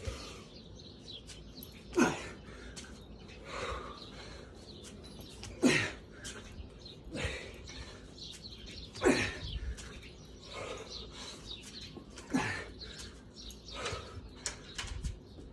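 A person breathing hard in a steady rhythm during exercise: a sharp, forceful exhale about every three and a half seconds, with softer inhales between.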